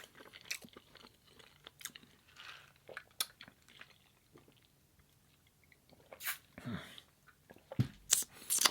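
Close-miked chewing of food: wet mouth clicks and small crunches, easing off briefly in the middle, with a few louder noisy sounds near the end.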